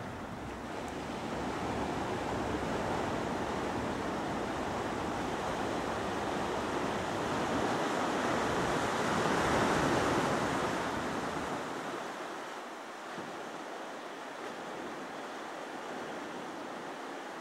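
Ocean surf: a steady wash of breaking waves, swelling to its loudest about ten seconds in and then easing off.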